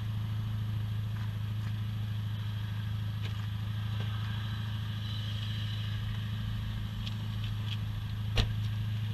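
Steady low hum of a motorcycle engine running at an even speed, with one sharp knock about eight seconds in.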